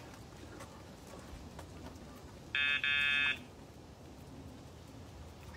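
Two electronic buzzer beeps about two and a half seconds in, a short one then a longer one, each a harsh buzzy tone.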